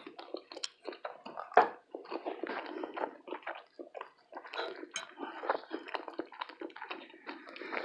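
A person chewing a mouthful of food: a run of soft, irregular mouth clicks and smacks, with one louder click about a second and a half in.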